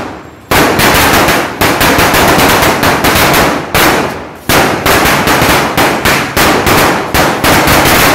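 Gnanavel 'Blue Tube' 5000-wala firecracker string going off in a rapid, unbroken run of bangs. After a short lull in the first half-second, the bursting is dense and continuous, dipping briefly about four and a half seconds in.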